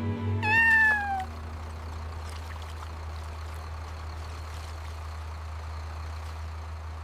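A single cat meow, falling in pitch, about half a second in; a steady low hum carries on after it.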